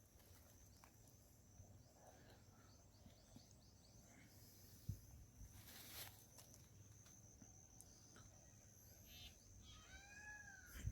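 Near silence: faint outdoor field ambience with a steady faint high-pitched tone and a few soft ticks. Faint short rising-and-falling animal calls come near the end.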